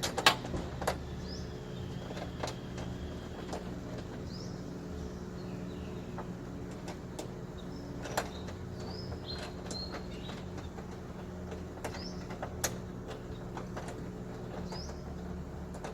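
Scattered light clicks and taps of hand tools working on the door lock parts inside a car door, a few sharp ones standing out, over a steady low hum. Faint short bird chirps come and go.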